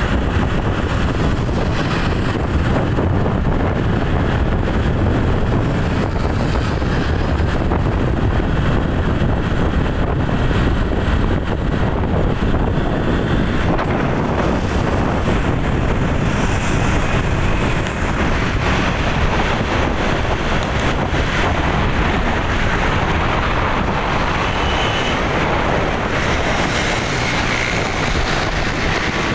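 Wind rushing over the microphone on top of steady road and vehicle noise from travelling along a road.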